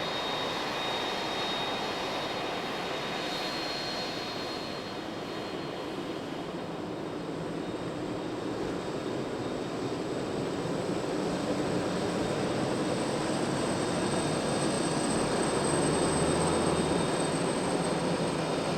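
Boeing 767-300ER's turbofan jet engines running on the ground: a steady rush with a thin high whine over it, growing somewhat louder over the last several seconds.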